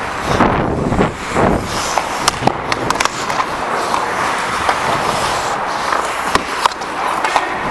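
Hockey skate blades scraping and carving on rink ice, with several sharp clicks of sticks and puck scattered through it.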